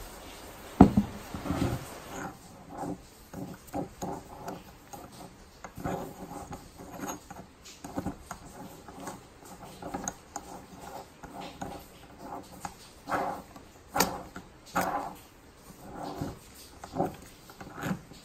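A small cast-iron screw jack handled on a wooden bench: a sharp knock about a second in as it is set down, then irregular short clinks, scrapes and squeaks of metal on metal as the steel tommy bar is fitted into the screw head and worked, with another sharp knock near the end.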